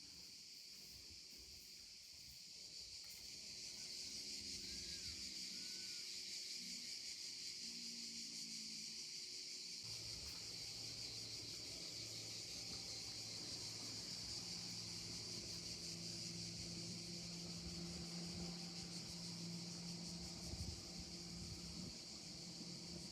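Steady high-pitched chorus of insects buzzing outdoors. A low steady hum joins about ten seconds in.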